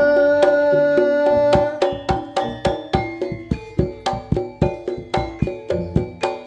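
Live Javanese jaranan band music: a long held note for about the first two seconds, then an instrumental passage of struck pitched percussion and hand drums beating about three times a second.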